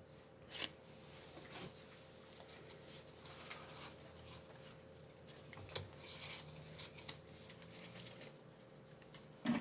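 Faint rustling and light clicks of Pokémon trading cards and their foil booster pack being handled and sorted by hand.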